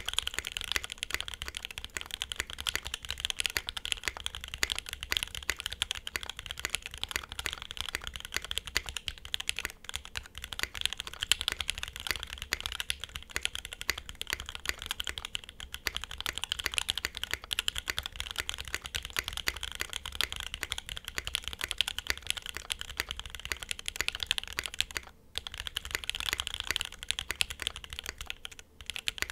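Fast, continuous typing on a gasket-mounted custom keyboard with lubed Alpaca linear switches, an FR4 plate and GMK keycaps: a dense stream of keystrokes, with two short pauses near the end.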